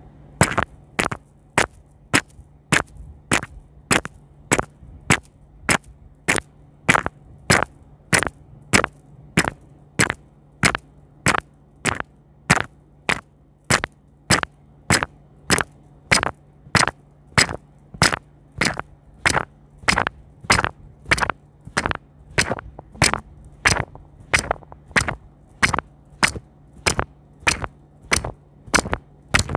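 ASMR crackle trigger: a steady, even series of sharp cracking clicks, a little under two a second, over a faint low hum.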